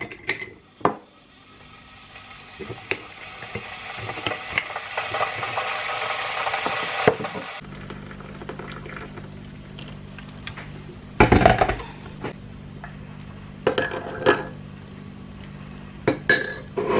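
Making a cup of tea: a kettle's hiss builds up over several seconds as it heats, then cuts off. After a short loud burst of handling, a metal teaspoon clinks against a ceramic mug and stirs the tea.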